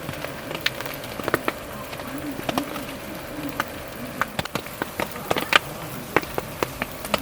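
Raindrops tapping irregularly on the tent fabric, with a steady faint hum underneath.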